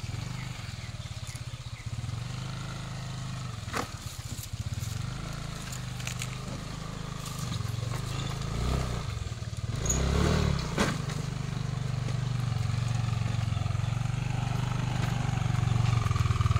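Yamaha Aerox scooter's single-cylinder engine running at low speed as it crosses a rocky creek bed, growing louder as it comes closer. Two sharp knocks stand out, about four seconds in and again about eleven seconds in.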